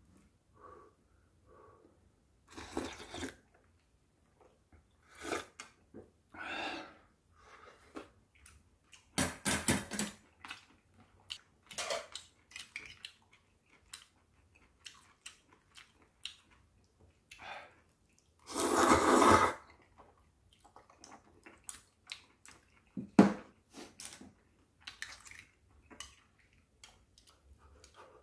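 Eating sounds: clam knife-cut noodles (bajirak kalguksu) slurped in several short bursts, the longest and loudest about two-thirds through, with chewing and the light clink of a ladle and steel chopsticks on the bowls.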